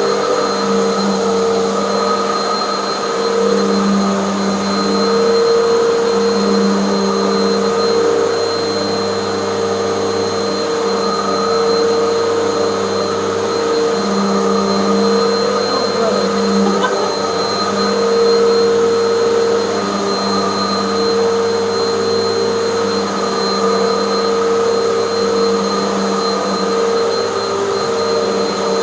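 Hoover bagless vacuum cleaner running steadily on carpet, its motor giving a constant hum and whine that wavers slightly as it is pushed back and forth.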